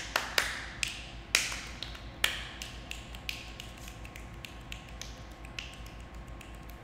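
A run of sharp taps and clicks made with the hands. Four or five loud ones fall in the first two and a half seconds, then many fainter, quicker clicks follow.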